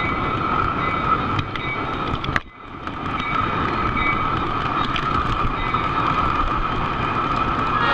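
O scale model train rolling along three-rail track, heard from a camera riding on the train: a steady rolling rumble with a steady whine. About two and a half seconds in a sharp click comes, the sound drops away briefly, then builds back up to the same steady running.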